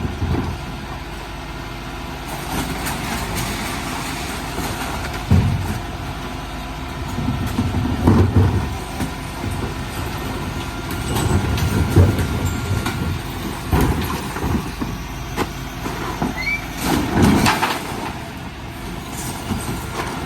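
Dennis Eagle Elite 6 refuse truck's diesel engine running steadily, with irregular heavy thumps and rattles several times over.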